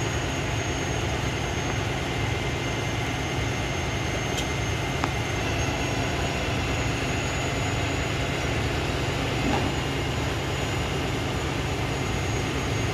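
Heavy diesel truck engines running steadily: a low, constant rumble with a faint high-pitched whine over it.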